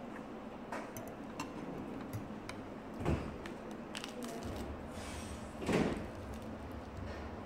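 Quiet table noises while eating: a few light clicks of a metal fork against the bowl, a bump about three seconds in, and a short louder rustle near six seconds as fresh vegetable leaves are handled.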